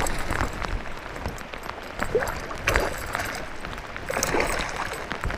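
Water splashing as a hooked muskie thrashes at the surface beside a kayak, with rain falling throughout.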